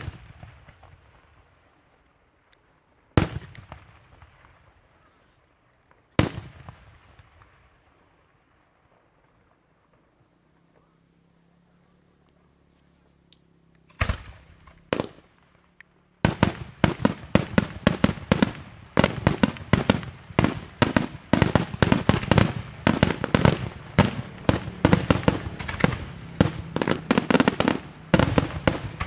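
Daytime fireworks display: about five single loud bangs a few seconds apart, each trailing off in a rolling echo, then, a little past halfway, a rapid unbroken barrage of bangs.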